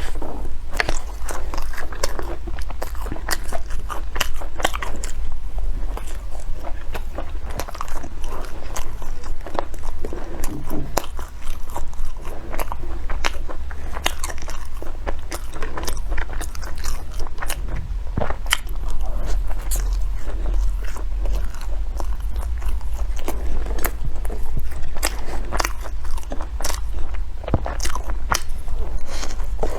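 Biting and chewing a coconut bread roll, with dense, irregular crunchy clicks and mouth noises throughout, over a steady low hum.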